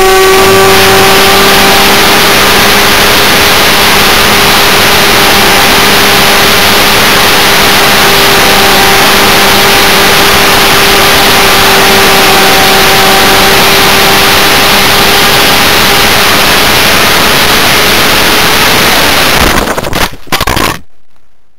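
Electric motor and propeller of an RC high-wing model plane, heard from on board. It runs at a steady high whine under loud wind rush. Near the end the sound breaks into a few sharp knocks as the overloaded model hits the ground, then stops.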